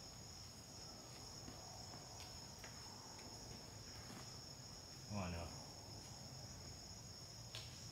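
Steady chorus of insects in the trees, a continuous high buzz at two close pitches. A short human voice sound breaks in briefly about five seconds in.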